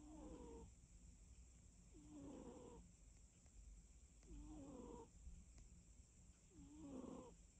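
A cat snoring faintly while asleep, four whistling snores at a slow, even pace, about two seconds apart.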